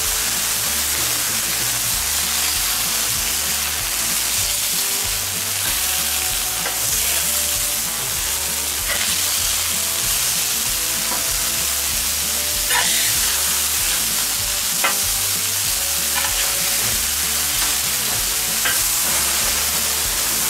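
Beef burger patties and bacon sizzling steadily on a hot wood-fired steel fire plate, with a few sharp clicks of the metal spatula against the plate as the patties are turned.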